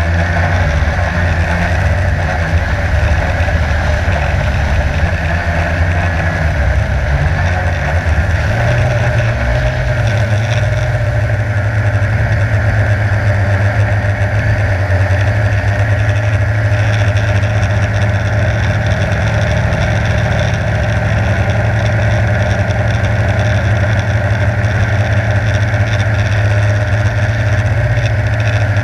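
Multirotor drone's motors and propellers buzzing steadily, heard from the camera on board; the low hum rises a little in pitch about nine seconds in.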